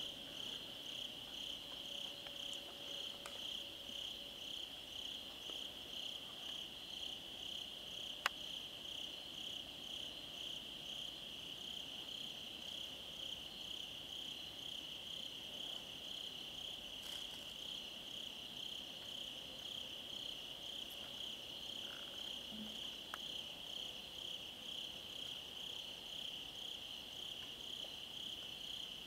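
Steady night chorus of crickets trilling on one high, finely pulsing note, with a single sharp click about eight seconds in.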